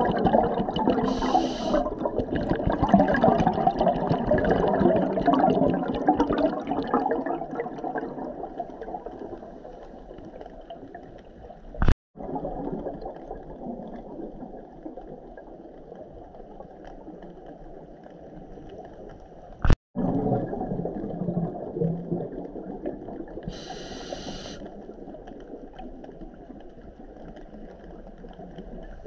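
Underwater sound of a diver breathing through a scuba regulator. Exhaled air bubbles rush and gurgle loudly, and a short hiss of inhalation comes twice. Two sharp clicks with a brief dropout, one about twelve seconds in and one near twenty, mark edits between clips.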